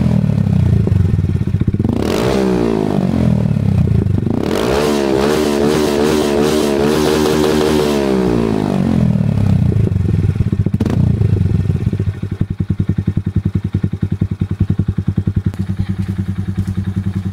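Honda MSX 125's single-cylinder engine through a LeoVince slip-on exhaust, revved hard once, then held at high revs for about four seconds before dropping back. It settles into a steady, pulsing idle for the last few seconds.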